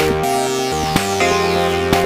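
Background electronic music: sustained pitched notes over a steady beat, with a strike about once a second.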